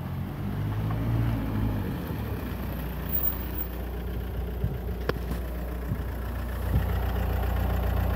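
Car engine running steadily at low revs, with a brief thin high chirp about five seconds in.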